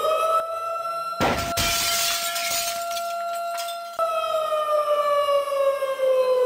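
Air-raid-style siren wail holding one pitch, then slowly sliding down from about four seconds in. A glass-shattering sound effect crashes over it about a second in.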